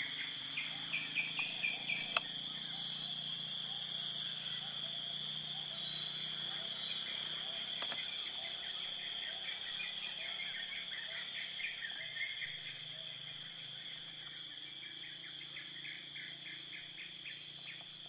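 Forest ambience: insects keep up a steady high-pitched drone while birds chirp in quick runs, busiest in the first few seconds and again around the middle. A single sharp click comes about two seconds in.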